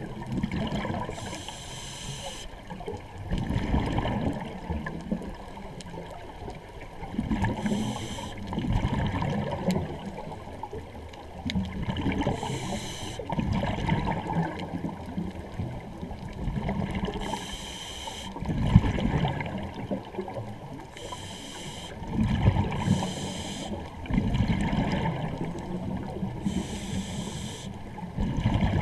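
Scuba regulator breathing underwater: a short hissing inhale every four to five seconds, each followed by a louder, low bubbling rush of exhaled air.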